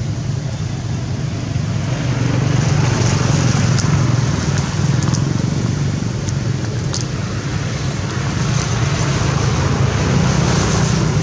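Steady low rumble with a hiss over it, and a few faint clicks.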